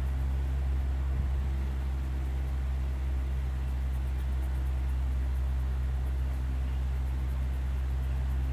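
A steady low mechanical hum, even throughout, with faint scratching of a colored pencil shading paper.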